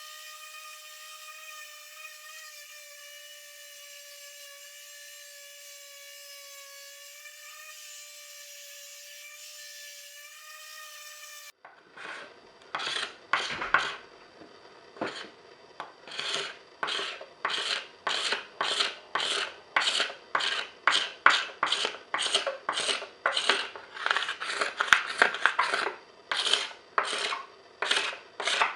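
A steady, slightly wavering motor whine for about the first eleven seconds, which cuts off abruptly. After that, 80-grit sandpaper is rubbed by hand over a planed wooden lid in regular back-and-forth strokes, about two a second.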